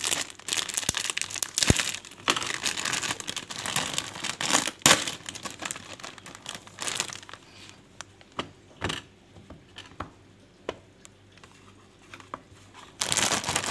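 Plastic bread bag crinkling as it is handled and opened and slices of bread are pulled out. Dense crinkling for the first seven seconds or so, then scattered soft rustles and taps, and crinkling again near the end.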